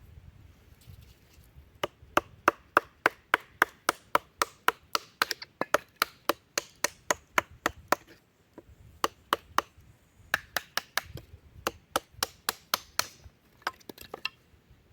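Rapid, evenly spaced sharp knocks of a knife being worked into wood, about four a second, in two runs with a short pause between.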